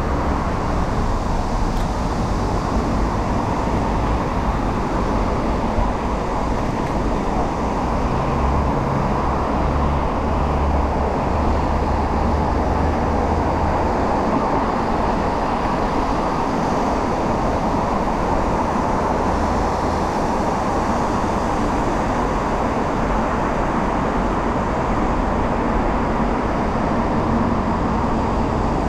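Steady city road-traffic noise with a low rumble that swells and fades.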